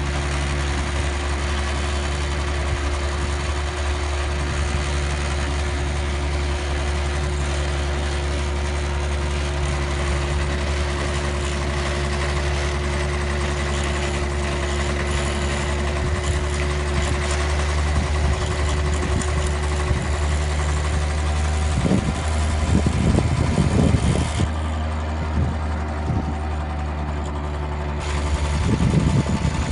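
Small engine of a student-built Shell Eco-marathon car running steadily as the car drives along, with a few louder rough bursts near the end.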